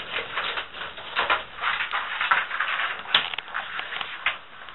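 Pet iguanas biting and chewing food: an irregular run of crunching, crackling bites, the sharpest about three seconds in.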